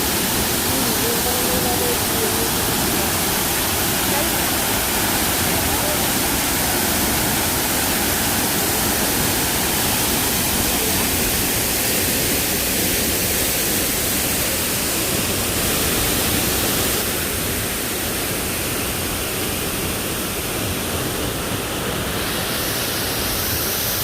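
Steady, loud rush of water falling from a large man-made waterfall.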